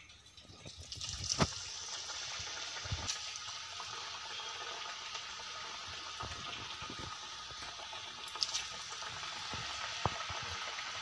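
Banana vada batter deep-frying in hot oil, a steady sizzle that starts about a second in as the batter goes into the pan, with occasional small pops and crackles.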